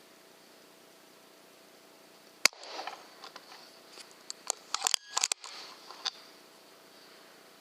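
A single sharp crack of an air rifle shot about two and a half seconds in, followed by a scatter of clicks and scuffling over the next few seconds.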